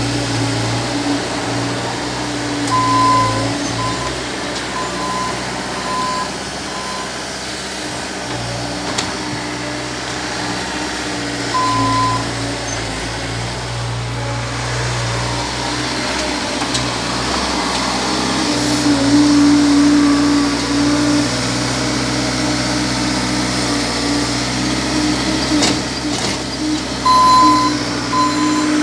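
Bobcat S450 skid-steer loader's diesel engine running steadily as it works, louder for a few seconds partway through. Its reversing alarm beeps in short runs a few seconds in, once around the middle, and again near the end.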